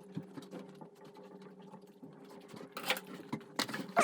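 Small clicks and rustles of food and packaging being handled while eating, over a steady low hum, with two louder rustling scrapes about three and three and a half seconds in.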